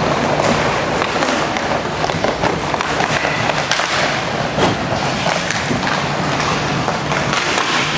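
Inline hockey play: the steady rolling noise of skate wheels on the rink floor, with many sharp clacks of sticks and puck scattered through it.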